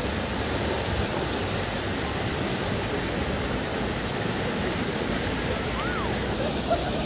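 A heavy torrent of water pours steadily out of the back of a plastic-lined truck bed and splashes onto the ground as the makeshift truck pool drains.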